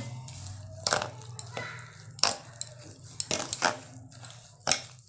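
Metal spoon scraping and clinking against a stainless steel bowl while stirring wet semolina and curd into idli batter, in irregular strokes.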